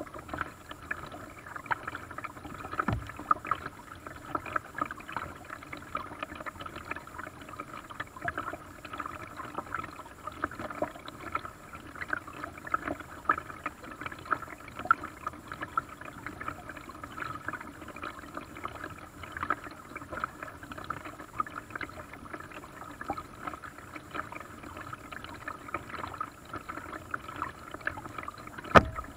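Paddle strokes in lake water: a steady patter of small splashes and drips as a paddle craft moves along, with a knock about three seconds in and a louder one near the end.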